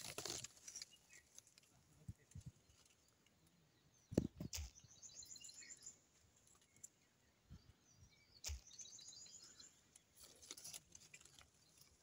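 Quiet outdoor ambience with a faint, rapid, high-pitched trill of bird-like chirps heard twice, and a few knocks and leaf rustles from handling the branches, the loudest knock about four seconds in.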